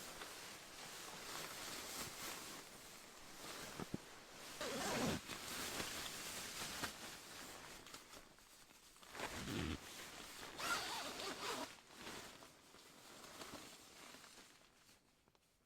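A zipper being drawn in rasping pulls, with the two loudest pulls about five and about nine and a half seconds in, and softer scratchy handling in between.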